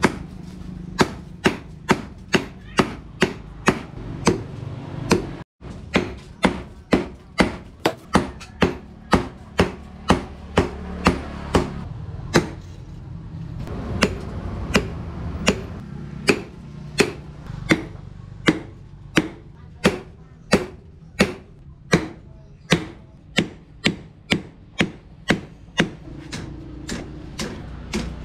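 Hand hammer striking red-hot twisted steel rebar on a steel anvil post: a steady run of sharp metal-on-metal blows, about two to three a second, over a low hum. The blows thin out briefly around twelve seconds in.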